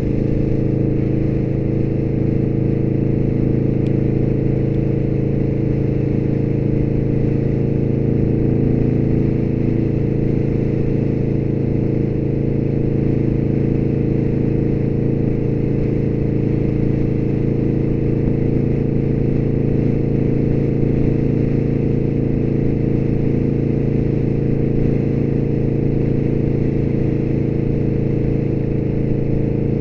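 Motorcycle engine running steadily at constant cruising speed on a freeway, its pitch and loudness holding level throughout.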